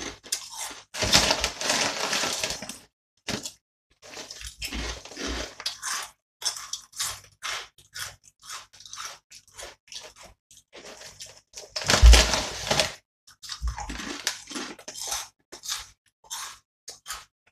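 A person crunching and chewing hand-cooked potato crisps, in irregular bursts of crunches with short pauses, loudest about a second in and again about twelve seconds in.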